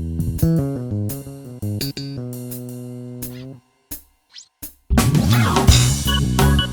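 Instrumental music from an arranger keyboard: a held bass-and-guitar chord, then a run of stepped notes that fades out. After a short break with a couple of clicks, a full band arrangement with drums and bass comes in about five seconds in.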